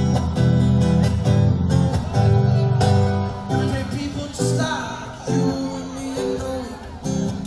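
Live acoustic guitar strummed in chords, fullest in the first few seconds, with a man singing over it.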